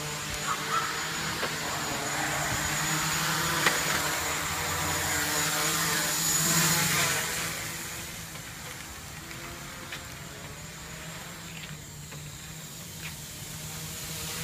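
Steady electric hum of a few fixed tones, typical of a quadcopter's small brushless motors spinning at low throttle, swelling louder for a few seconds in the middle and then easing back.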